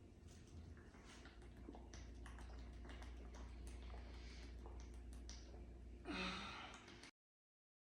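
Faint gulps and small clicks of someone chugging soda from a 2-liter bottle over a low hum. About six seconds in comes a short breathy sigh, and the sound cuts off suddenly about a second later.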